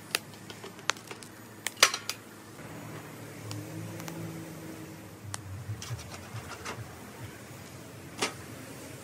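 Sharp clinks and knocks of wood and coals being shifted with a stick in a steel fire pit, clustered in the first two seconds with the loudest about two seconds in. After that, a low steady rumble with a few scattered clicks.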